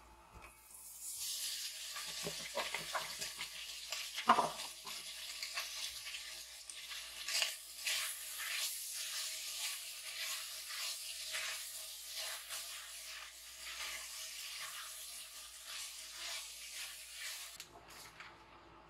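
Chicken pieces sizzling in hot oil with ginger and onion in a stainless steel pot while a spatula stirs and scrapes, giving many small clicks against the pot. There is one sharp knock about four seconds in. The sizzling cuts off suddenly near the end.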